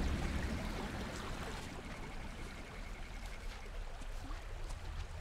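River water flowing in a steady rush. A deep low rumble dies away over the first second.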